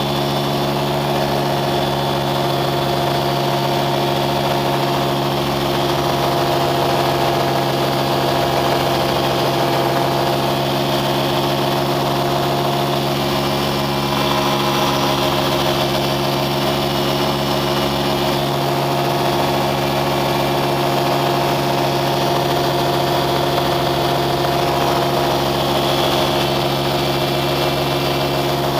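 A vehicle engine running at a constant speed: a steady drone whose pitch does not change.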